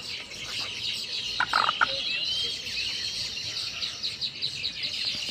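Many small birds chirping at once in a dense, continuous chorus, with a few short rising whistles, and one brief lower call about a second and a half in.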